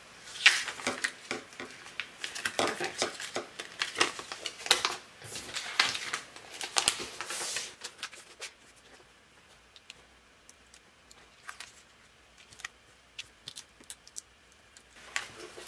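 Paper backing being peeled off cut adhesive vinyl stuck to transfer tape, for reverse weeding: crackly peeling and crinkling for about the first eight seconds. After that only faint scattered clicks as a weeding hook picks at the cut vinyl.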